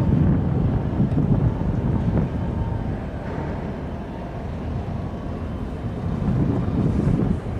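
Wind buffeting an open-air microphone in gusts, a low noise that eases off in the middle and picks up again near the end.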